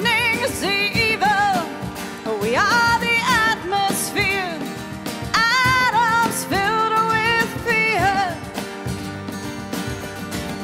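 Live acoustic band: a woman's voice sings long held notes with vibrato over strummed acoustic guitars and a cajon. The voice stops about two-thirds of the way through, leaving the guitars.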